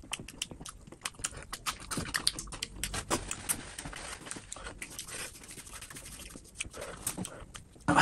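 Close-miked chewing of meat with the mouth open: a dense run of quick wet clicks, smacks and crackles, irregular and unbroken.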